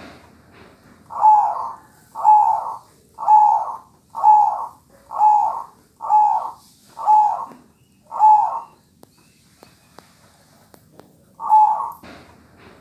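Zebra dove (perkutut) cooing its song. There is a run of eight short coos at about one a second, then a pause of about three seconds, and one more coo near the end.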